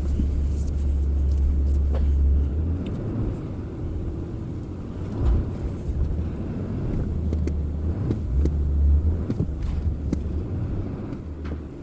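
Truck driving down the road: a steady low rumble of engine and road noise.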